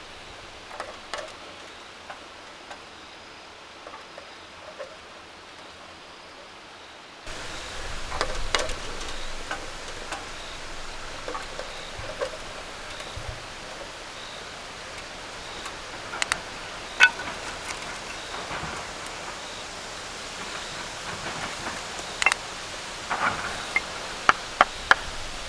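Firewood burning in a small tabletop wood stove: a steady hiss with scattered crackles and pops, and several louder snaps in the second half. About seven seconds in, the background hiss jumps abruptly louder.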